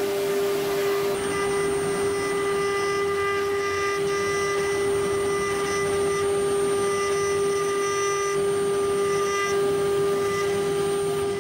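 CNC router spindle running at 24,000 rpm, a steady tone, while a small engraving bit mills a pattern into a metal block with a hiss of cutting.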